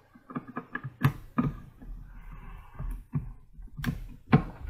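A few scattered sharp clicks and knocks, the sharpest about a second in and again a little before four seconds in.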